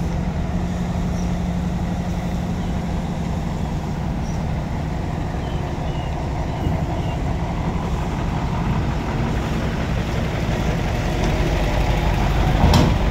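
Heavy diesel engine running steadily, with a low hum. A single sharp knock sounds near the end.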